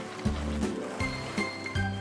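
Cartoon background music: a gentle melody with a low bass line, its notes changing about every 0.4 s.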